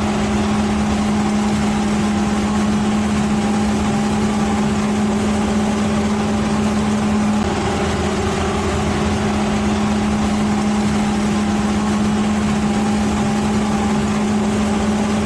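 Engine of a heavy machine running at a steady speed, a loud even hum with a slight change in tone about halfway through.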